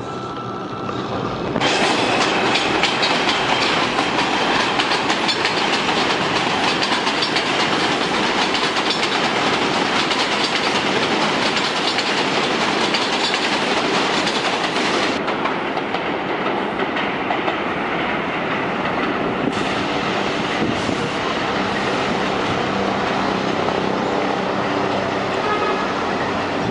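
An R142 subway train's cars rolling past close by on elevated steel track, the wheels clacking over the rail joints. The steady running noise loses some of its hiss for a few seconds past the middle.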